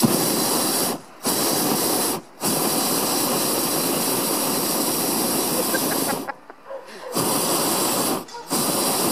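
Hot-air balloon's propane burner firing in long blasts broken by four short pauses, heating the envelope so the balloon climbs.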